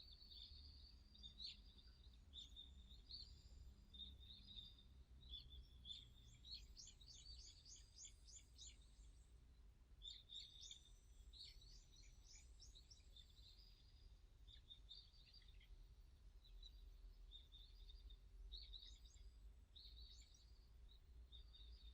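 Faint wild birdsong: several birds chirping and calling, with a quick run of repeated high notes about six seconds in, over a low steady background rumble.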